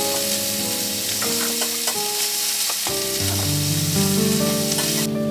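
Food sizzling in a hot pan, a dense frying hiss that cuts off suddenly near the end, with light background music of sustained mallet-like notes underneath.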